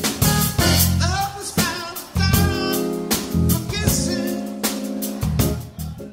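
Piano trio with drum kit and bass guitar playing live, with sharp drum and cymbal hits over sustained piano and bass notes; the music fades out near the end.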